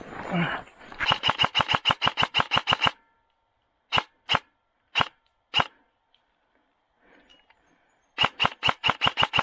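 Airsoft rifle firing: a rapid string of shots at about eight a second, then four single shots spaced about half a second apart, then another rapid string starting near the end. A brief rustle comes just before the first string.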